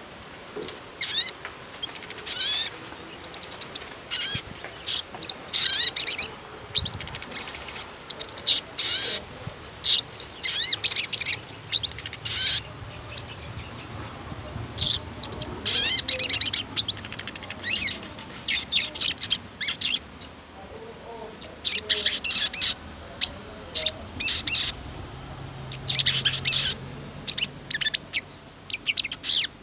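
Sogon (tailorbird) in full song: rapid, loud, high chirping phrases repeated every second or so with short pauses between, the steady singing used as a lure to set other sogon birds singing.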